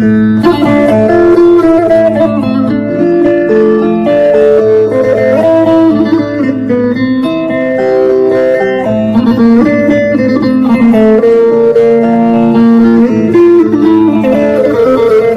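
Bağlama, the Turkish long-necked lute, played as a plucked melody with notes changing continuously.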